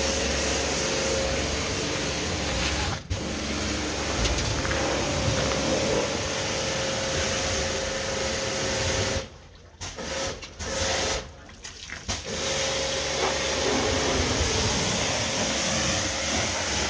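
Steady hiss of water spraying under pressure, with a faint steady hum beneath. It cuts out abruptly for a moment about three seconds in, and several times between nine and twelve seconds, each time coming straight back.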